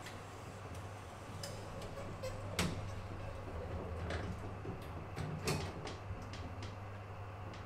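A steady low hum with a dozen or so scattered clicks and knocks at irregular intervals. The loudest knocks fall about two and a half seconds in and about five and a half seconds in.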